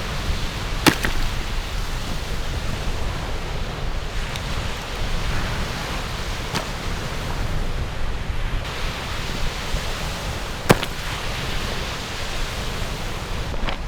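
Steady wind buffeting the microphone with waves washing on the Lake Superior shore, broken by three sharp knocks several seconds apart.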